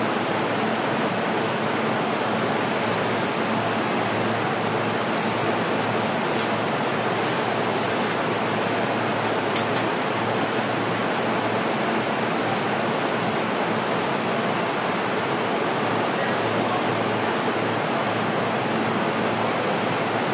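Steady rushing noise inside the passenger car of a JR East E233-series commuter train, with a low steady hum underneath.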